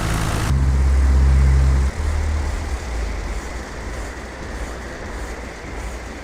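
Cessna 172 in flight: a loud, steady rush of air with a low drone underneath. About half a second in, the drone swells for a second and a half, then drops back to a lower rumble.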